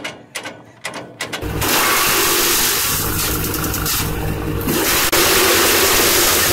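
A few sharp clicks, then about one and a half seconds in a tractor engine's steady running sets in suddenly and continues loud.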